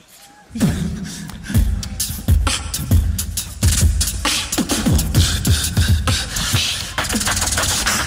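Beatboxing into a microphone: a fast, dense rhythm of deep bass kicks that slide down in pitch, cut with sharp snare and hi-hat clicks, starting about half a second in.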